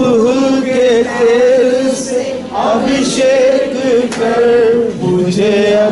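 A man's voice singing a slow chant-like worship melody, holding long notes and sliding between pitches.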